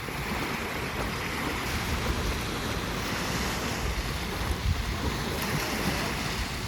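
Sea waves breaking and washing on a beach, a steady surf noise, with wind buffeting the microphone.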